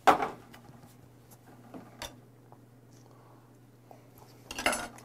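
Close-up mukbang mouth and table sounds: a loud, short breathy burst right at the start as a shot glass of soju is emptied, a light click about two seconds in, and another short breathy sound near the end as raw beef is brought to the mouth with metal chopsticks.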